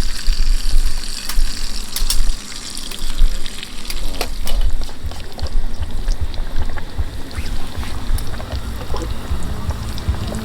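Food frying in a pot on a camp stove, with short clicks and scrapes of a utensil over a steady low rumble.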